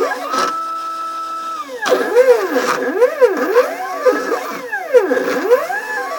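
Stepper motors of a homemade mini CNC plotter whining as the axes move, their pitch rising and falling in quick arcs as each move speeds up and slows down. The pitch holds steady for about a second near the start, and a few sharp clicks are heard.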